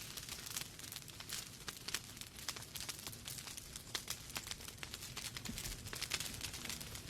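Wood fire crackling in a fireplace: many irregular pops and snaps over a steady low rumble.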